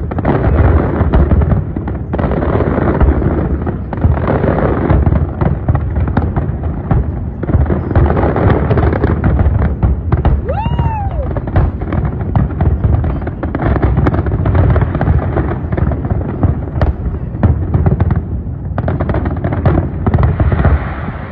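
Large aerial fireworks display in a dense, unbroken barrage of deep bangs and crackles. A single brief whistle rises and falls about halfway through.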